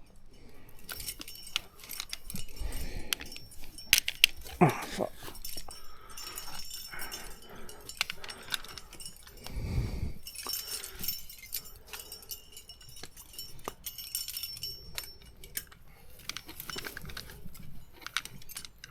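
Metal climbing hardware jingling and clinking, with irregular clicks and scrapes throughout and a short pitched whine about four to five seconds in.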